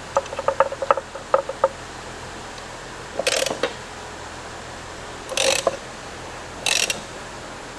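Hand-tool work inside an opened Polaris Ranger 900 transmission as the snorkel gear retainer that sets backlash is turned and snugged down. First comes a quick run of light metal clicks, then three short metallic ratcheting strokes a couple of seconds apart.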